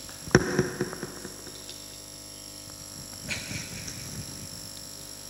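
Faint steady hum and hiss from a live karaoke sound system with its microphone channel open, noise the owner puts down to a worn microphone cable. A single sharp knock comes about a third of a second in.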